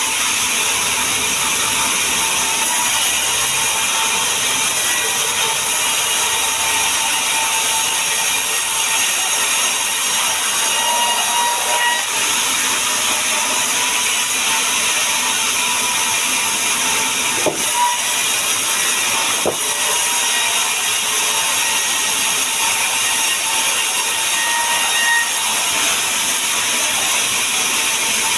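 Power woodworking machinery cutting sengon wood, with a steady, even, hissing noise and a couple of brief knocks a little past the middle.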